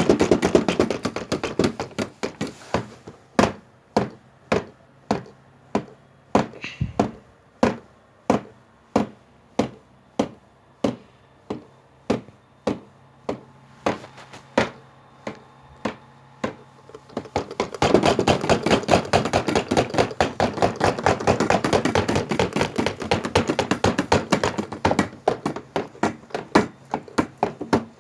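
A rocking, shaking washing machine knocking with each swing, about two knocks a second. A little past the middle the knocks run together into fast, loud banging for several seconds, then slow back to single knocks.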